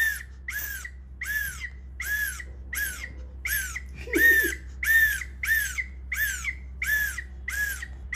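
Toddler blowing a small plastic toy whistle in quick short puffs, about two a second, each a brief high tone that rises and falls in pitch.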